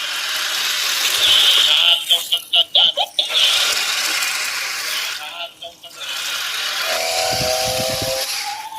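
Toy RC rock crawler's small electric drive motors and plastic gearboxes whining under throttle. The whine cuts in and out rapidly for about a second, about two seconds in, as the throttle is blipped.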